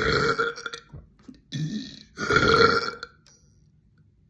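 A young woman burping: two long, loud burps about two seconds apart, with a short one between.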